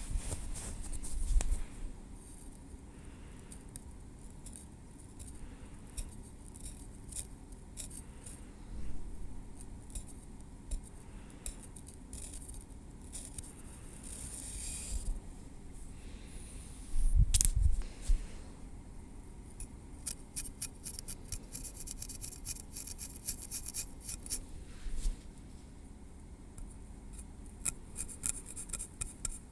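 Close-miked metal tweezers clicking, with soft scraping and rubbing against the scalp and hair. The light ticks come scattered at first, then as a quick run of fine clicks past the middle and again near the end, with one dull low thump about halfway through.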